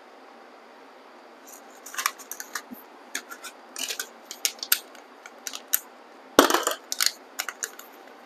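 A string of small clicks and rattles: squash seeds knocking about in a small plastic seed bottle as it is opened and a seed is picked out. The loudest rattle comes about six and a half seconds in.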